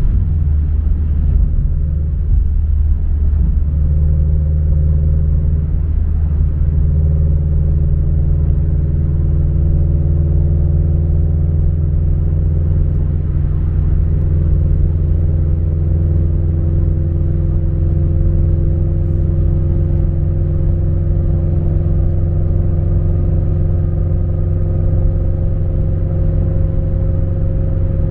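Subaru BRZ's flat-four engine with a MAperformance 3-inch catback exhaust, heard from inside the cabin while cruising: a steady low-end rumble with road noise and no excessive drone.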